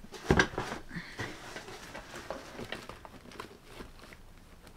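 A cardboard gift box and its packed contents being handled and shifted: a sharp knock or rustle about a third of a second in, then soft scattered rustles and small taps.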